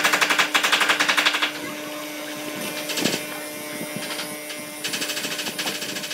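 Benchtop hollow-chisel mortiser cutting a square mortise into a wooden block. The motor runs with a steady hum, and two spells of rapid chattering come as the chisel and auger bite into the wood: one at the start and one about five seconds in.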